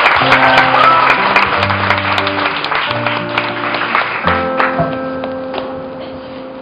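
Audience applause fading out as the instrumental introduction of a song begins, a series of long held notes changing about every second.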